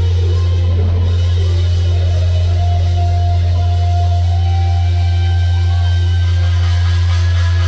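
Live instrumental rock: an electric guitar holds long sustained notes over a constant deep low drone, the whole mix loud and bass-heavy.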